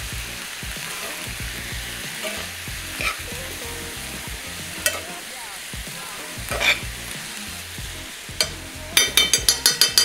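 A bean stew with pancetta and onion sizzles in a skillet over charcoal while a metal spoon stirs and scrapes it in a few short strokes. Near the end comes a quick run of sharp taps.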